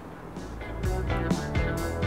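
Background music with a steady beat of about two strokes a second, coming in about half a second in.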